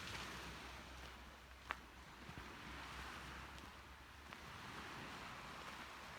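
Sea ambience: small waves washing in soft, repeated swells with a hiss of wind, and one sharp click about a second and a half in.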